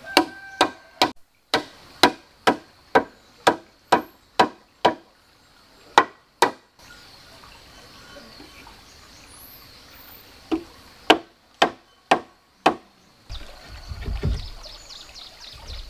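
Hand-held wooden mallet striking wood in sharp knocks, about two a second: a run of about ten, two more, then five after a pause. Near the end, a low rumble and bumping as a log is handled.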